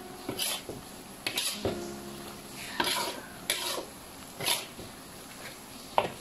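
Slotted metal spatula scraping and clanking against a wok while stir-frying beef with onion and potato, in irregular strokes about once a second, the sharpest clank near the end. A faint sizzle runs underneath.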